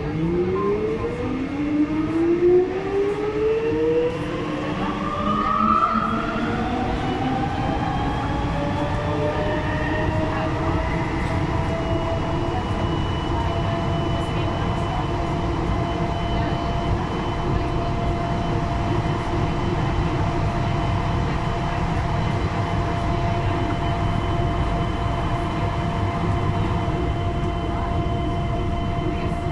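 Siemens VAL 208 rubber-tyred automatic metro train accelerating, heard from inside the front of the train. Its motor whine rises in pitch over the first ten seconds or so, then holds at a steady pitch as the train cruises, over a constant rolling rumble.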